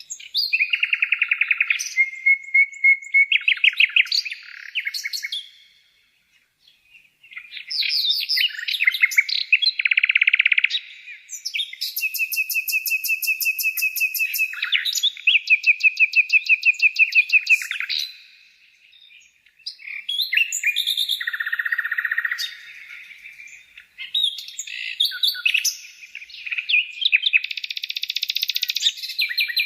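Birds calling in rapid strings of high chirps and trills, several runs overlapping, broken by two short pauses.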